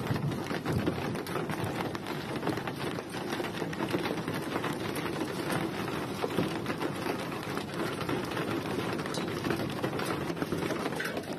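Heavy hailstorm: hailstones and rain pelting down, a dense, steady patter of countless small impacts.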